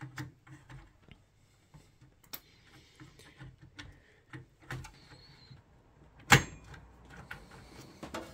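Handling and seating an aluminium CPU heatsink-fan on a motherboard inside a PC case: scattered small plastic and metal clicks and knocks, with one sharp, loud click about six seconds in.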